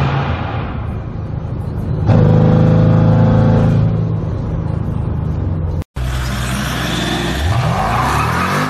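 Supercharged V8 of a Jeep Grand Cherokee Trackhawk heard from inside the cabin at highway speed, pulling hard from about two seconds in, then easing off. After an abrupt cut near the middle, a Grand Cherokee's V8 runs low and then revs up sharply near the end.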